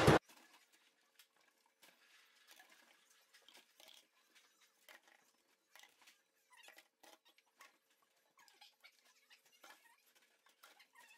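Brief loud noise at the very start, then faint, scattered clinks, taps and rubbing of dishes being hand-washed in a stainless steel sink.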